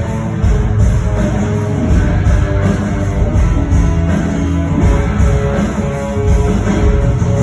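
Rock band playing live, electric guitar to the fore over bass and drums, with cymbals keeping a steady beat; an instrumental stretch of the song.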